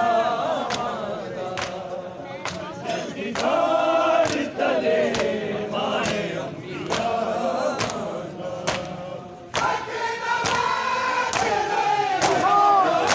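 Crowd of mourners chanting a nauha together in a slow sung lament, with their hands striking bare chests in unison (matam) at a steady beat of a little more than one strike a second.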